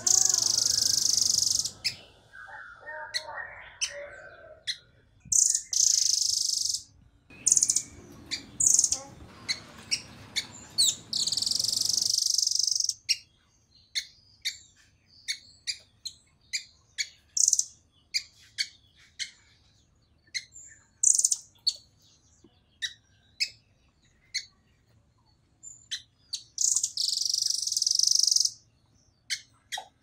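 Blue nuthatch calling: several loud, high-pitched trilled bursts, with a long run of short sharp chips at about two a second in between.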